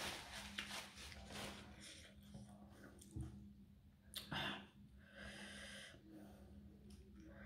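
A woman blowing her nose into a tissue, then sharp sniffs and breathing through a running nose brought on by very hot chillies. There is one noisy burst at the start and another sniff about four seconds in.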